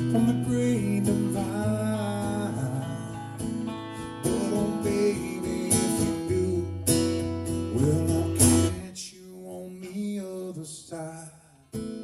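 Solo acoustic guitar in an open tuning, played as an instrumental passage with ringing bass notes and picked and strummed chords. It drops to a few quieter ringing notes late on, then the strumming picks up again near the end.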